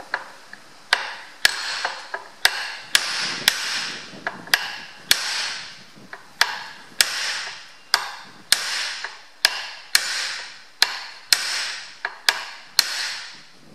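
Hammer blows on a homemade steel punch set against the rusty, tight gland nut (about 60 mm) of a John Deere tractor's power steering column, knocking it round to undo it. Sharp metal strikes about two a second, starting about a second in, each ringing briefly.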